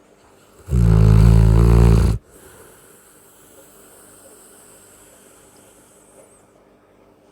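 One loud, deep snore from a sleeper, starting about a second in and lasting about a second and a half, followed by a long quiet stretch of faint breathing before the next snore.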